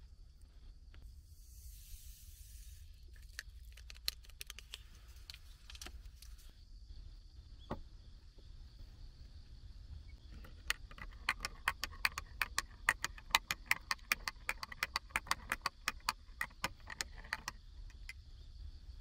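A metal teaspoon stirring espresso in a small glass measuring jug, clinking quickly against the glass, about six clinks a second for some seven seconds in the second half. Earlier come a short hiss and a few scattered clicks as the parts of a manual lever espresso press are handled.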